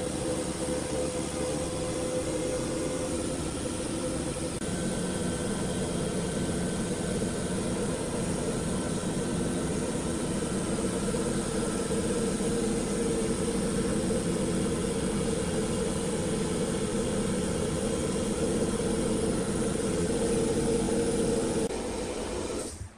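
Steady mechanical drone of a running motor, with a steady hum, cutting off abruptly near the end.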